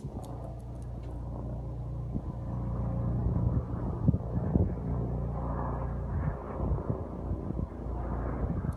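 Large helicopter circling overhead at a distance: a steady low rotor drone that swells, loudest about three to four seconds in, then eases off slightly.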